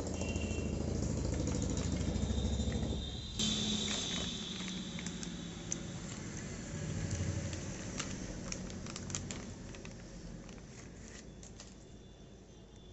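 Handling noise from a wireless neckband earphone and its plastic packaging: rustling and scattered sharp clicks, with a sudden louder rustle about three seconds in. Underneath is a low rumble that is strongest in the first few seconds and fades toward the end.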